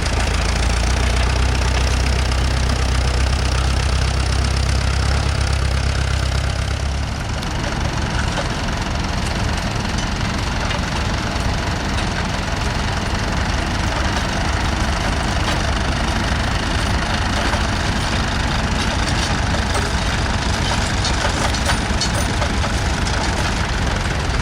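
Vintage tractor engines running. A deep, heavy rumble from a nearby engine stops about seven seconds in, and a lighter, steady engine sound carries on after it.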